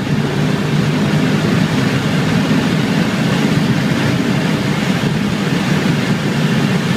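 Audi RS4's engine at full throttle heard from inside the cabin, revving hard in fourth gear and shifting up once near the end, with heavy wind and road noise at over 100 mph.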